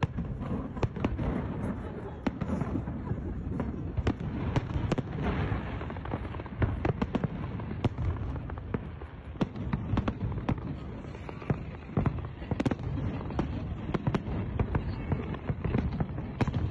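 Fireworks going off in quick, irregular succession: many sharp bangs and crackles overlapping one another without a break.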